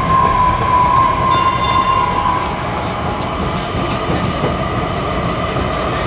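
DART light rail train running past on street track, a steady rumble with a high steady tone over it that fades out a little over two seconds in.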